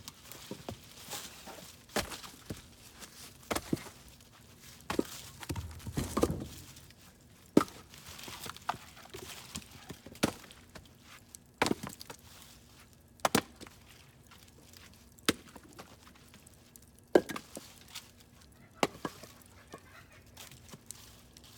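Split firewood knocking and thudding as pieces are handled and stacked, with a sharp wooden knock about every one and a half to two seconds.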